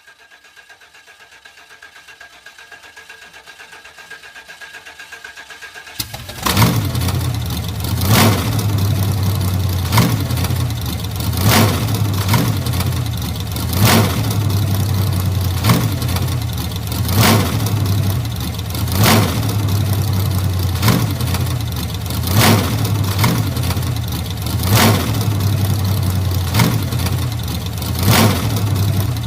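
Old car engine cranking on the starter with a fast pulsing beat that grows louder, then catching suddenly about six seconds in. It then runs steadily, with a sharp louder surge about every two seconds.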